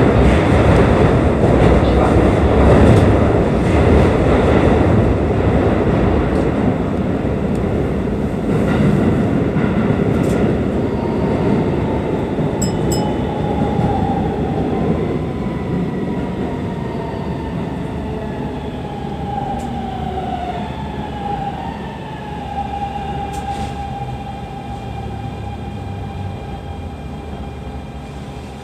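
Keikyu New 1000 series train 1033F, which has a Siemens GTO "Doremifa" inverter, rumbling through a tunnel with wheels clicking over rail joints. Then it brakes into the platform, and a whine from the inverter and traction motors falls in pitch as the train slows toward a stop.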